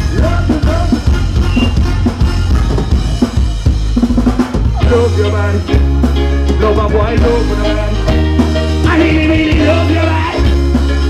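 Live band playing an upbeat Caribbean groove on drum kit, electric bass and electric guitar. About five seconds in, the bass line and beat shift into a new pattern with held melodic notes over it.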